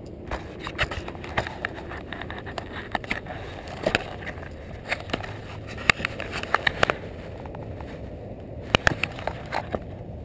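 Irregular sharp clicks and knocks over a low steady rumble, the loudest in clusters about two-thirds of the way through and near the end: a GoPro camera on a BMX bike rattling as it is moved and handled.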